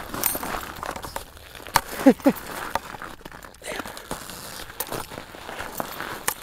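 Crunching and rustling with many scattered clicks, snow and jacket fabric close to the microphone, with a short falling grunt about two seconds in.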